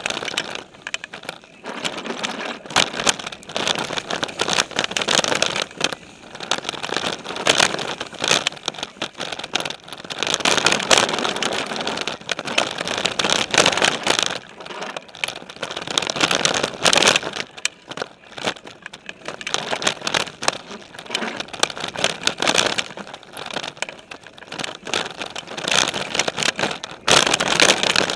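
Mountain bike riding a dirt trail strewn with dry leaves, heard through a camera mounted on its frame: a continuous rush of tyres over dirt and leaf litter, with frequent clattering knocks and rattles from the frame as it goes over bumps, the noise swelling and dipping with the terrain.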